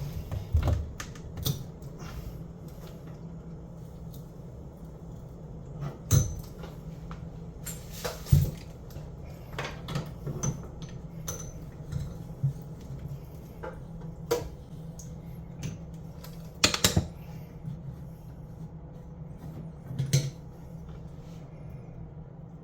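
Scattered clicks, clinks and knocks of tools and metal fittings being handled during plumbing work, a few sharper knocks among them, over a steady low hum.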